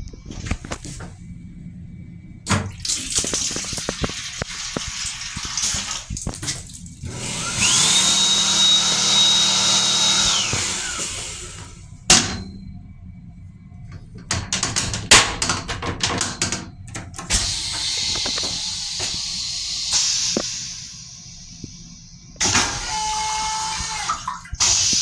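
Restroom fixtures on a Long Island Rail Road M7 railcar in use: a toilet flush with water rushing and a high whine that rises, holds for about two seconds and falls away. Sharp clicks and further stretches of running water follow.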